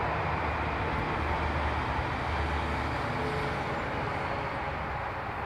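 Steady outdoor rumble and hiss that fades slowly, with no distinct events.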